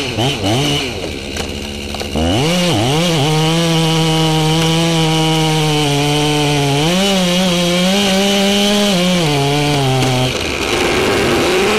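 Two-stroke chainsaw cutting into the base of a large tree trunk. The engine dips and picks up twice early on, then runs steadily under load in the cut. About ten seconds in the saw's note drops away and the wood gives a rising creak as the felling cut nears through.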